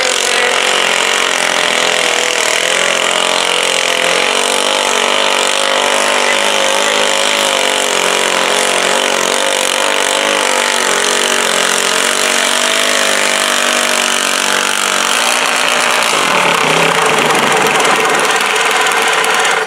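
Super stock garden tractor's engine running hard under load as it drags a weight-transfer sled, loud and steady, its pitch wavering. The engine note shifts about fifteen seconds in.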